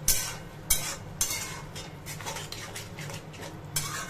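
A flat metal spatula scraping and knocking against a metal kadhai while stirring minced beef with yogurt, in several sharp strokes. The mixture is being bhuna-fried until its water dries off.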